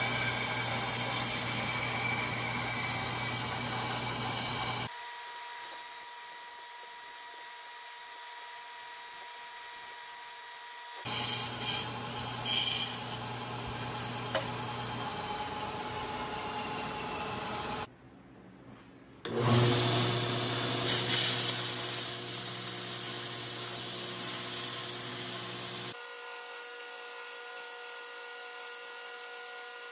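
A bandsaw runs and cuts through a block of wood, heard in several separate stretches as a circle is cut out. Near the end a belt grinder runs while a small wooden disc is sanded against its belt.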